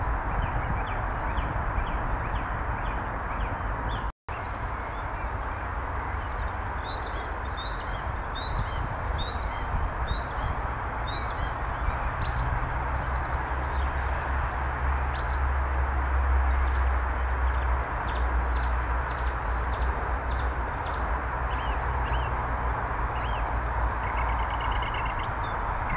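Birds calling over a steady outdoor hiss and low rumble. The calls come as a run of short, high, rising chirps starting about six seconds in, followed by many scattered short calls, and the sound drops out briefly about four seconds in.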